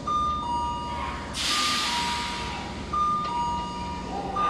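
Station platform warning chime, a two-tone high-low electronic ding-dong repeating about every second and a half, sounding as a train approaches the platform. A loud hiss comes up about a second and a half in and fades away.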